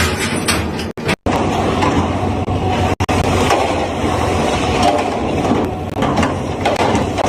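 Heavy machinery running with a steady low rumble and dense mechanical noise, cut off abruptly for a moment twice about a second in and once again about three seconds in.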